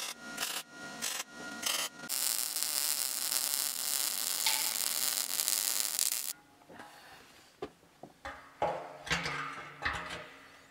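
Wire-feed (MIG) welder arc on steel tabs being welded to a propane tank. It makes a few short tack-weld bursts, then a steady crackling bead of about four seconds that cuts off suddenly, followed by a few faint knocks.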